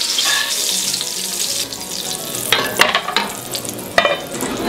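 Browned fennel sizzling in butter and olive oil in a cast-iron frying pan, the hiss dying down after the heat is turned off. In the second half come a few sharp knocks and clinks of metal tongs and a lid being set on a skillet.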